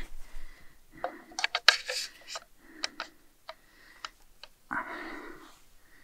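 Camera gear being handled and fitted together: a string of short, sharp clicks and small knocks from plastic and metal fittings, with brief rustles in between.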